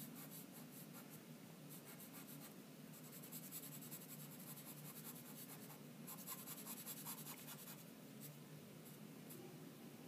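Faint scratching of a chalk pencil stroking across drawing paper, in short repeated strokes.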